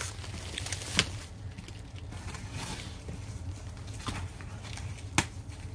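Box cutter slicing through packing tape and cardboard on a shipping box, with a few sharp clicks, one about a second in and two near the end.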